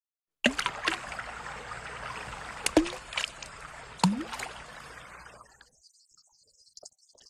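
Water sounds: a splashing, trickling wash with a few sharp drops and plops, fading out after about five seconds into a faint hiss.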